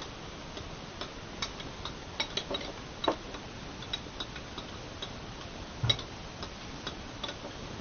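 A spoon clicking and tapping irregularly against a dish while salt is stirred into liquid soap, with a slightly louder knock about six seconds in.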